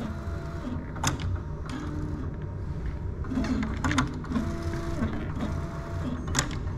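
Prusa XL 3D printer's stepper motors whining in short moves that step between pitches as the print head travels along the gantry during calibration, with a few sharp clicks, the loudest about six seconds in.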